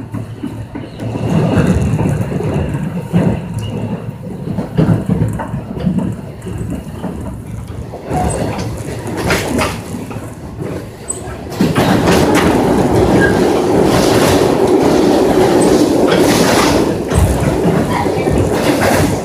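Korail Line 1 resistance-controlled electric train running on the rails, a rumble with scattered wheel clicks. About twelve seconds in, it abruptly gets louder and turns into a steady rush.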